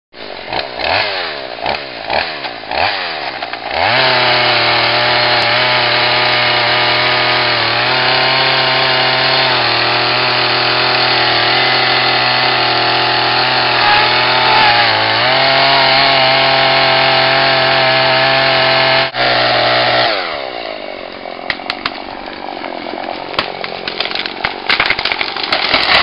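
Chainsaw revved a few times, then held at full throttle cutting into a tree trunk for about fifteen seconds, dipping briefly once as it bogs in the cut. About twenty seconds in, the engine drops back to idle, and sharp cracking and snapping follow as the tree goes over.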